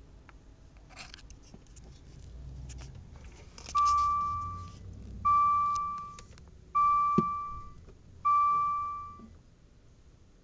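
Dodge Dart instrument cluster chiming four times: identical single-pitch chime tones, each starting sharply and dying away over about a second, about one and a half seconds apart. A few light clicks and rustling come just before.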